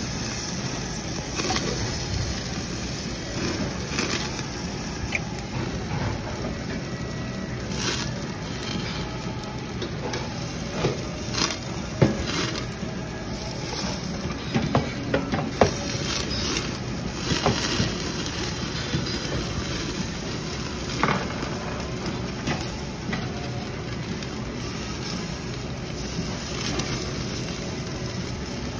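Meat sizzling on a tabletop grill, with occasional sharp clicks and clinks, the loudest near the middle.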